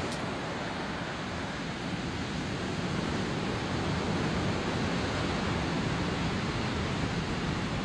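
Ocean surf, a steady rushing wash of waves.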